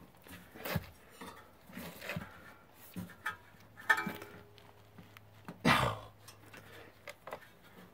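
Scattered light clinks and knocks of tools and metal parts being handled, with one louder knock about six seconds in.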